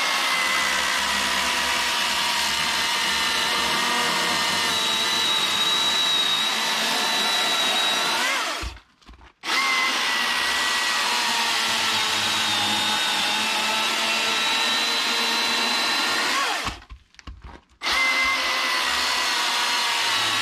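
Milwaukee M18 cordless chainsaw cutting through a hemlock log: a steady electric-motor whine with the chain ripping through wood. It stops twice, about 8 seconds and 17 seconds in, with the whine rising briefly just before each stop, then starts again a second later.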